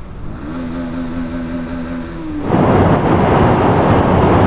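Bajaj Pulsar NS160 single-cylinder engine running under way, its note rising and then holding steady. About halfway through, a sudden loud rushing noise swamps it.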